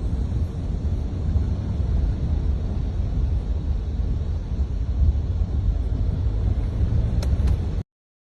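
A steady low rumble with a fainter hiss above it, cut off abruptly near the end.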